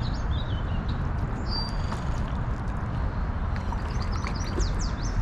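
Birds chirping in short, quick calls over a steady rushing noise that is heaviest in the low end.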